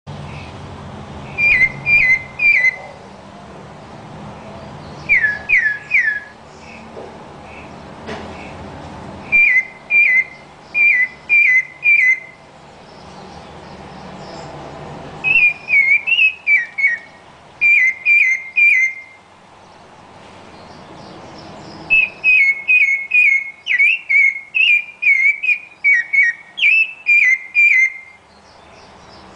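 Rufous-bellied thrush singing: short phrases of clear, whistled, down-slurred notes, three or four in quick succession, with pauses of a few seconds between phrases. Near the end the phrases run on longer with little pause.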